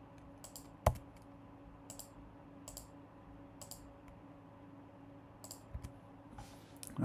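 Scattered single clicks of a computer mouse and keyboard, about seven spread out, one sharper a little under a second in, as knife-tool cut points are placed in a 3D modelling program. A faint steady hum lies underneath.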